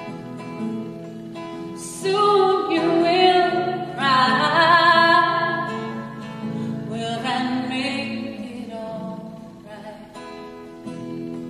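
A woman singing a song to acoustic guitar accompaniment. She holds two long, wavering sung phrases, one starting about two seconds in and a shorter one near the middle, over steadily sounding guitar chords.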